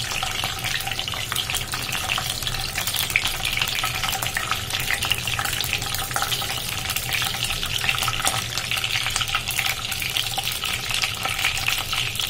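Hot oil sizzling steadily around peeled boiled eggs shallow-frying in a kadai, with a thick stream of small crackling pops.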